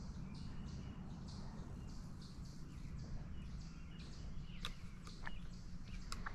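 Birds chirping in leafy woodland: a short high call repeated about twice a second, thinning out after a few seconds, over a low steady rumble. A few sharp clicks come near the end.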